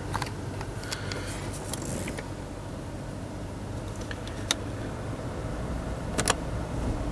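Toyota Camry V6 engine idling steadily, heard from inside the cabin, with a few light plastic clicks from the climate-control panel as the fan knob is turned and the A/C button pressed; the sharpest is a double click about six seconds in.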